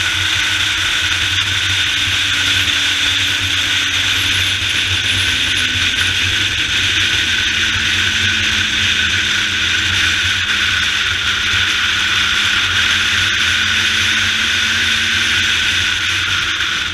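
Steady rush of wind and road noise on a motorcycle-mounted camera at road speed, with a Suzuki GSX-R sport bike's engine running underneath; its note drops slightly a few seconds in and then holds steady.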